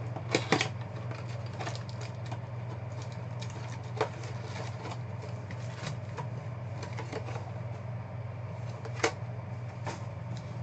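Trading card packs and a cardboard box being handled on a tabletop: light rustling and small taps, with sharper knocks just after the start, about four seconds in and about nine seconds in. A steady low hum runs underneath.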